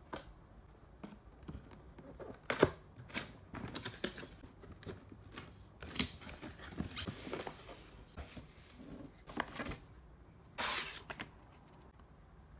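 A cardboard box being opened by hand: flaps pulled and lifted, with scattered knocks and cardboard rubbing on cardboard, the sharpest knock a couple of seconds in. Near the end comes a short paper rustle as a printed sheet is drawn out.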